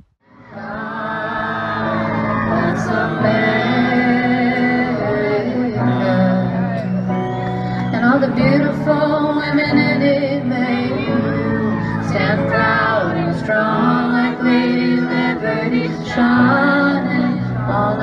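A female pop singer singing with long held notes over sustained backing music.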